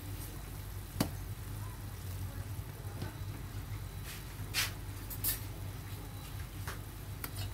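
Luffa soup simmering in an aluminium wok, stirred with a metal spatula. The spatula knocks sharply against the wok once, about a second in, and two short scraping noises follow a little past halfway, over a steady low hum.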